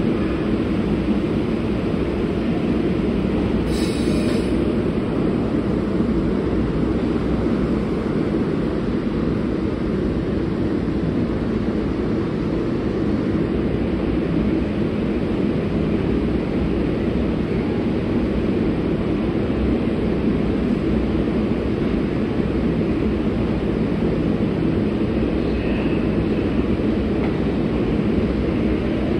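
New York City subway train running, a steady rumble throughout, with a brief high-pitched hiss or squeal about four seconds in.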